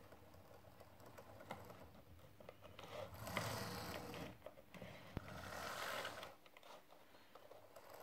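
Roco O-gauge Plymouth model locomotive on test: its small electric motor whirring with gear and wheel clatter as it runs along the track, in two short runs, about three seconds in and again about five seconds in, with small clicks between.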